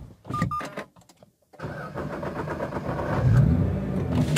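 Two short electronic beeps, then the starter cranking for about a second and a half. The Nissan GT-R's twin-turbo V6 then catches and settles into a steady idle near the end.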